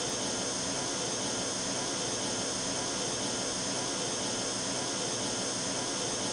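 Pink-noise test signal played from a loudspeaker, a steady, even hiss. It is the external noise against which the noise-cancelling headphones' attenuation is being measured.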